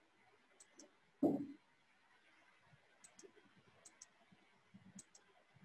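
Computer mouse clicking a few times, mostly in quick press-and-release pairs. A brief low muffled sound comes about a second in.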